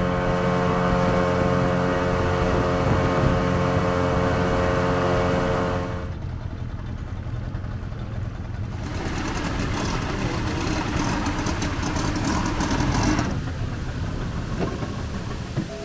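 Boat engine running at a steady speed, with a constant droning tone. About six seconds in, the sound cuts abruptly to a quieter, rougher engine rumble, which runs on with small changes.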